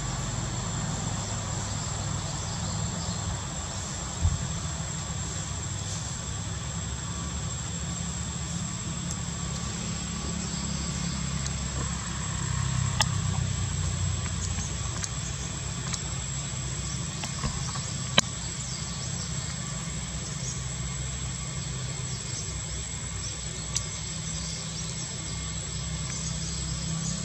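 Steady outdoor background: a low rumble under a continuous thin high-pitched whine, with a few isolated sharp clicks.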